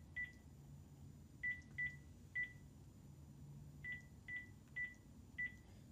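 Panasonic cordless phone handset beeping as its number keys are pressed: eight short beeps of one pitch, each with a small key click, in groups of one, three and four as a phone number is keyed in.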